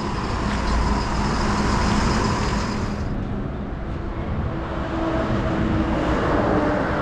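Highway traffic noise: a steady rumble of diesel truck engines and tyres, with faint whining tones that shift in pitch about halfway through.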